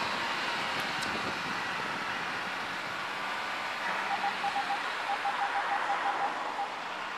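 Steady cabin noise of a Land Rover 4x4 driving slowly over grass. About four seconds in, a fast string of short, same-pitch electronic beeps starts, pauses briefly and stops near the end: the parking-sensor warning as the car passes close to a hedge.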